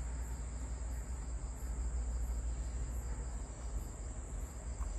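Insects chirping steadily: a continuous high trill with an evenly pulsing chirp above it, over a low steady rumble.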